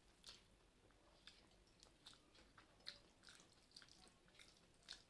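A person chewing a mouthful of rice and curry close to the microphone. Soft wet mouth clicks and smacks come at irregular intervals.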